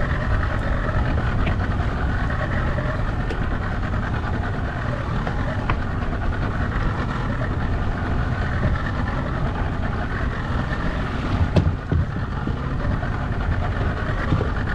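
A small skiff's engine running steadily, mixed with wind and water noise, with one sharp knock about three quarters of the way through.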